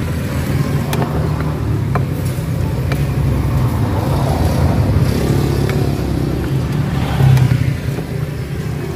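Steady low rumble of motor traffic, swelling in the middle and loudest briefly about seven seconds in. A few light clinks of a ladle against a metal broth pot and a bowl sound over it.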